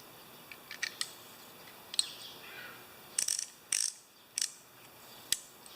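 Craftsman VK-44811 3/8-inch ratchet, cleaned of old grease and partly reassembled, clicking as its pawl mechanism is worked by hand: a few light ticks, then several short bursts of ratcheting clicks.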